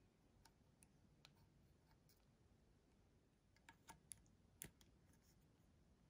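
Near silence broken by a scattering of faint, short clicks and taps as fingers handle a die-cast model aircraft and its plastic underwing missiles, with the loudest click about three-quarters of the way through.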